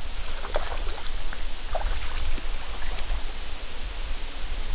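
Shallow creek water running steadily, with a few light splashes and small knocks from wading in rubber boots and setting a pot and a plastic water jug down on a fallen log.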